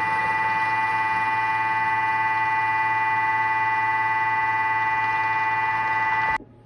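A Thermomix TM6 motor running at speed 4 while mixing cake batter: a steady, high machine whine. It cuts off suddenly near the end.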